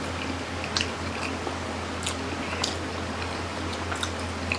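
Close-miked chewing of nori-wrapped baked sushi, with several short wet clicks and smacks scattered through, over a steady low hum.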